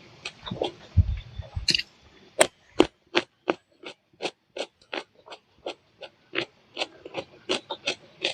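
Close-up chewing of banana blossom: a steady run of sharp mouth clicks, about three a second, after a few low thumps in the first couple of seconds.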